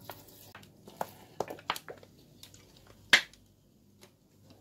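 Light clicks and taps of a fish sauce bottle being capped and handled, with one sharper click about three seconds in.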